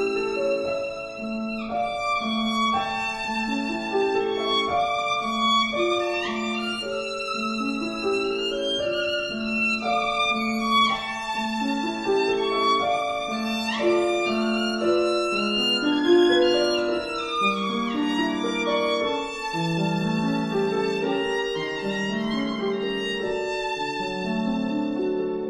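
Background instrumental music: a slow melody of long held notes, some of them sliding, over a low note repeated about once a second.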